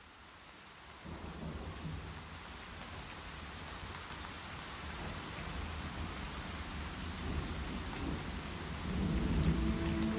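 Rain with a low rolling thunder rumble, fading in and growing steadily louder. Near the end, soft sustained music tones come in on top.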